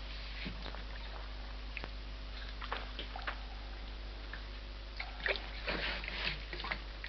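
Water sloshing and splashing as it is poured from a can, in short uneven gushes that come thickest in the second half, with a few scattered knocks over a steady low hum.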